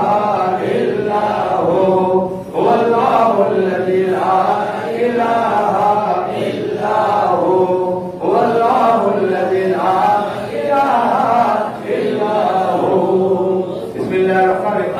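A man's voice chanting a devotional Milad recitation in long melodic phrases, with short breaks between them.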